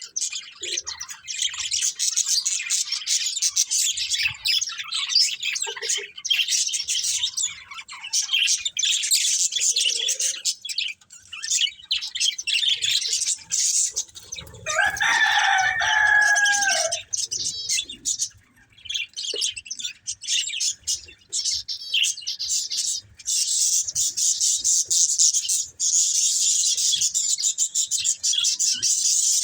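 Budgerigars chattering and chirping in a rapid, continuous high warble. About halfway through, a lower, drawn-out call of about two seconds rises over the chatter and ends in a falling pitch.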